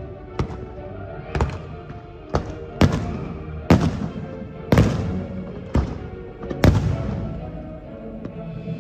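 Fireworks shells bursting about once a second, about eight sharp bangs, each dying away slowly, with music playing underneath.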